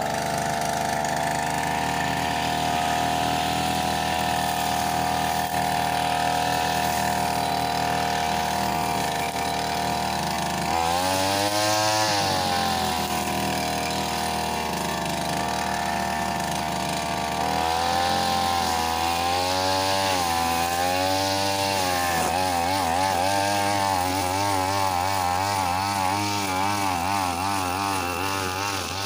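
Backpack brush cutter with a nylon-line head running at high speed while cutting grass. The engine pitch holds steady at first, then dips and recovers several times as the line bites into the grass, and near the end it swings up and down about once a second.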